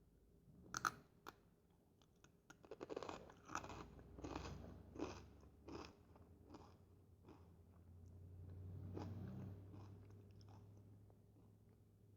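Fritos corn chips bitten and chewed close to the microphone. One sharp crunch about a second in, then steady crunchy chewing about twice a second that softens in the second half.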